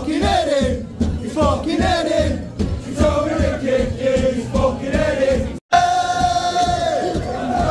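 Crowd of football fans singing a chant together in unison. The sound cuts out for an instant about five and a half seconds in, then the crowd holds one long sung note.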